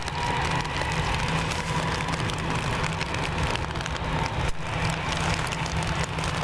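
Steady rain with many small drop impacts close by, over the low, steady rumble and faint whine of a jet airliner's engines as it rolls down the runway.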